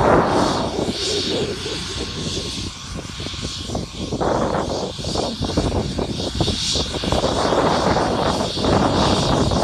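Twin-engine helicopter running on the ground with its rotor turning: a steady high turbine whine over loud rushing rotor noise that dips briefly and then swells again.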